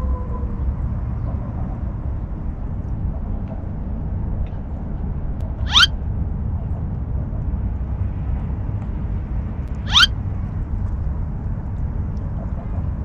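Steady low wind rumble on the microphone by open water. Two brief high chirps sweep quickly upward, about six and ten seconds in.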